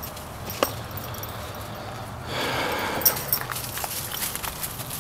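Footsteps and rustling through fallen oak branches and leaves, with a few light snaps and clicks. A denser stretch of rustling comes about two seconds in.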